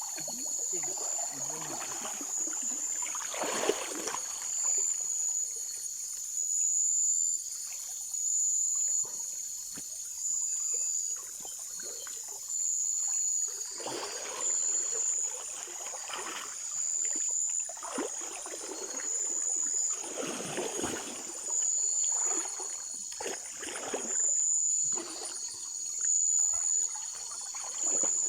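River water splashing and trickling in irregular bursts, the kind made by moving through shallow water. Under it runs a steady high-pitched insect chorus that swells and fades at regular intervals.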